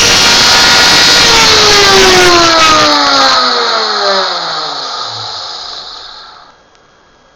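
CNC router spindle running at speed, then switched off: its whine falls steadily in pitch and fades as it winds down, dying away about six seconds in.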